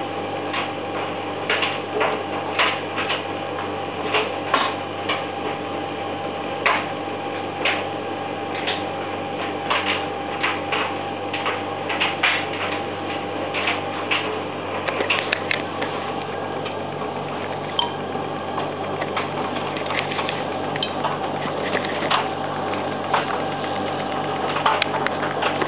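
Servis M2001W front-loading washing machine tumbling a load on its synthetics programme: a steady motor hum with water sloshing in the drum and irregular clicks and knocks as the laundry turns.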